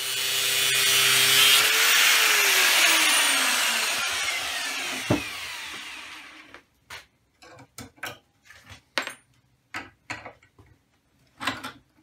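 Power grinder cutting into a steel exhaust joiner clamp, trimming metal from its inside. About two seconds in it is let off and its whine falls away as it spins down over the next few seconds, followed by scattered metal knocks and clicks as the part is handled.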